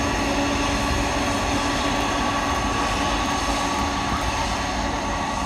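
Boeing 747-400 jet engines running in a steady, loud roar with a high whine over it, easing off slightly as the airliner rolls out down the runway after landing.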